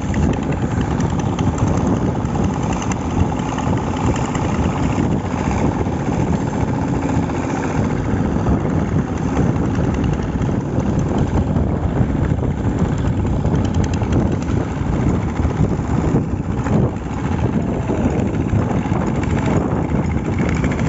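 An engine running steadily, a continuous low rumble with no breaks.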